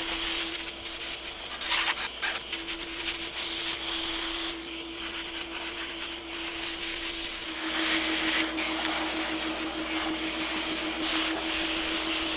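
Hand sanding a wooden kayak paddle blade: an abrasive pad rubbed back and forth over the blade's surface in uneven scratchy strokes, with a steady hum underneath.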